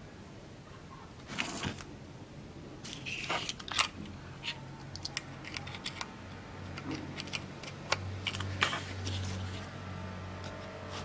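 Light clicks, taps and scrapes of a small homemade circuit board on cardboard being handled, and a USB cable plug being pushed into its USB port. A low hum comes in about eight seconds in.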